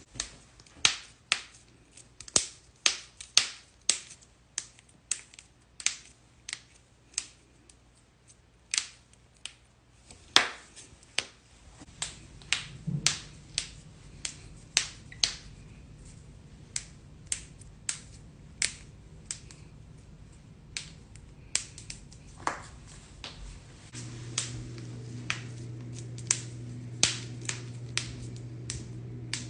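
Knuckle joints cracking: dozens of sharp pops one after another at irregular spacing, the sound of gas bubbles collapsing in the joint fluid. A low steady hum runs underneath and grows louder near the end.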